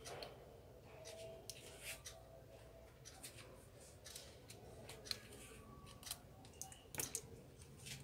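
Faint scattered clicks and scrapes of a thin pry tool and fingertips working on the parts inside an opened tablet, with two sharper clicks about five and seven seconds in.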